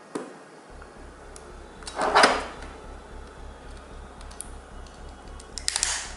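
Utility knife blade cutting the seal sticker on a small cardboard box, with a loud, short scrape about two seconds in and another near the end, between light ticks of the box being handled.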